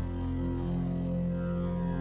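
Ambient background music: a steady, low drone with many overtones.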